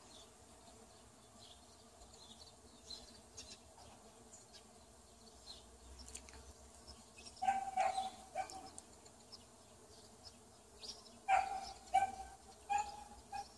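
Bees buzzing faintly and steadily in a blossoming fruit tree. A dog barks in two short bouts, a few barks about seven seconds in and a few more near the end.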